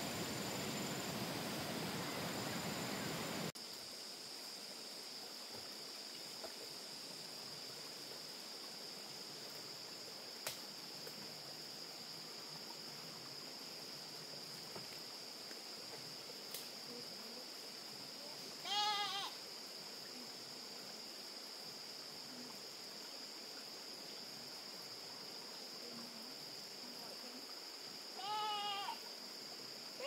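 Two short, high, arching animal calls, one about two-thirds of the way through and another near the end, over a steady high-pitched hum. The first few seconds hold a noisy rush that cuts off abruptly.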